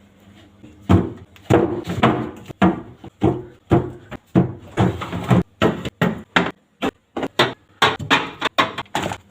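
Food containers and packets being set down and moved around on fridge shelves during restocking: a quick, irregular run of knocks and clunks that starts about a second in.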